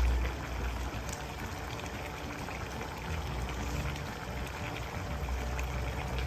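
Chicken stew with peas and sweet potato simmering in an open pot: a steady bubbling with small scattered pops, over a low hum.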